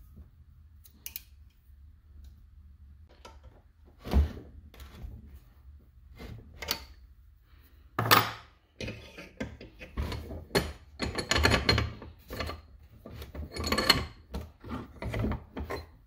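Metal-on-metal workshop handling noise from a bench vise and a wrench. There are two sharp knocks, about four and eight seconds in, then a spell of clanking and rattling as the vise is opened and the steel-braided power steering hose with its reusable AN fitting is taken out.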